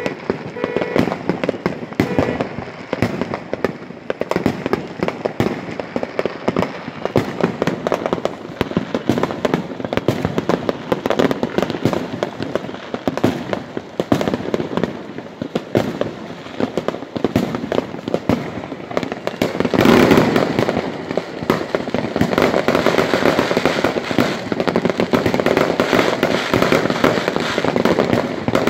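Many fireworks going off at once: a continuous barrage of bangs, crackles and pops from firecrackers and aerial shells, growing denser and louder about twenty seconds in.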